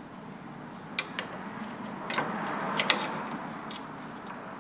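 A steel wrench clinks and clicks against the steering ram and its bracket as it is levered like a pry bar to line up a bolt hole. There are a handful of short sharp metal clinks, two of them close together near the middle.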